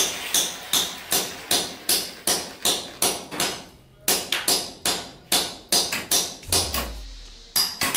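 A steady run of sharp taps, about two and a half a second, with a short gap around the middle and a low thud shortly before the end.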